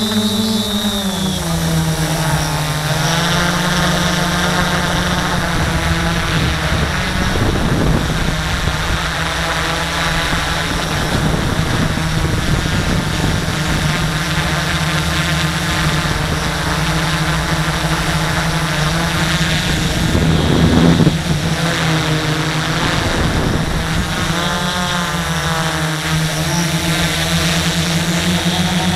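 XAircraft X650F quadcopter's electric motors and propellers buzzing steadily, heard from the camera on board, the pitch rising and falling as the throttle changes. A brief louder rush of noise about 21 seconds in is the loudest moment.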